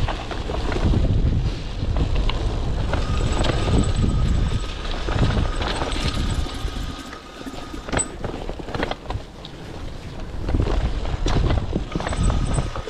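Cyclocross bike ridden over a dirt trail: heavy wind rumble on the microphone that swells and fades, tyres rolling over dirt and pine needles, and frequent short rattles and knocks from the bike going over bumps.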